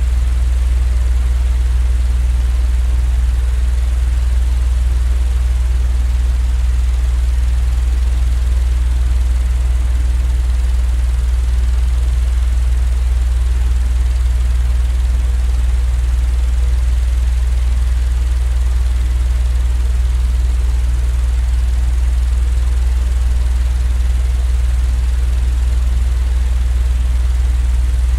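Steady, unchanging low rumbling drone of a sleep-aid noise track, mostly deep hum with a faint hiss over it.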